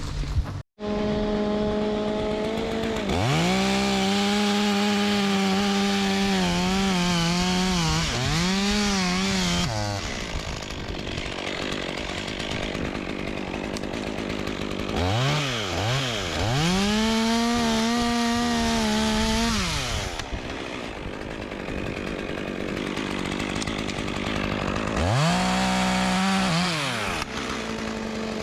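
Two-stroke chainsaw revved hard in three long bursts, its pitch wavering and sagging as the chain bogs in the wood, dropping back to a lower, quieter run between cuts.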